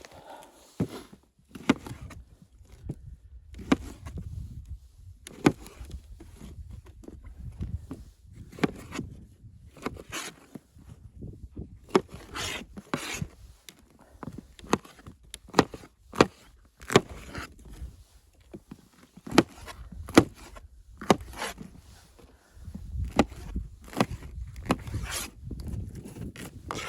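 Irregular sharp knocks and snaps of wood being handled, roughly one or two a second, over a low rumble.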